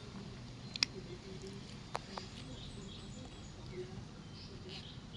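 Quiet chewing and mouth noises of someone eating raw mantis shrimp, with two sharp clicks about one and two seconds in.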